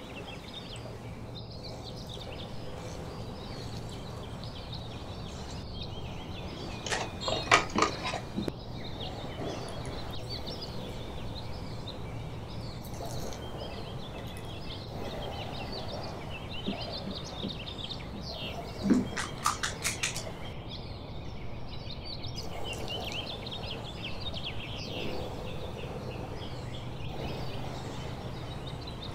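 Birds chirping in the background over a steady low hum. Twice, about seven and nineteen seconds in, there is a short burst of sharp clicks from a metal spring-release cookie scoop working the dough out of a ceramic bowl.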